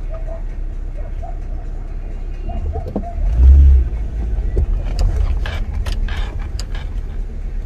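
A car driving, with a steady low rumble of road and engine noise. A loud low thud comes about three and a half seconds in, followed by a few short sharp knocks.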